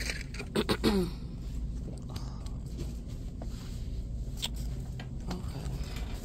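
Shop background: a steady low hum with scattered faint clicks and knocks. A short voice sound with a sliding pitch comes about half a second in.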